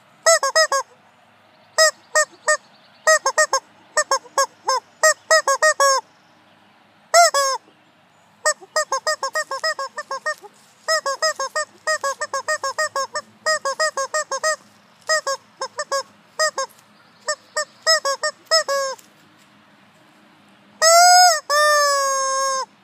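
Yellow rubber chicken toy squeezed over and over: clusters of short, quick squawks with brief pauses between, then long drawn-out squawks near the end.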